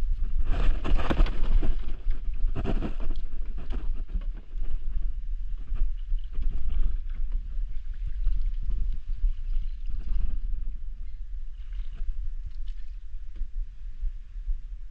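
Kayak being paddled across marsh water: irregular paddle strokes and splashes, the two strongest in the first three seconds, over a steady low wind rumble on the microphone.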